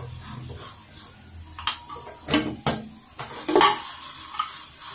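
Aluminium pressure cooker lid being worked free and lifted off once the steam pressure has been released: a few sharp metal clanks and scrapes, the loudest about three and a half seconds in.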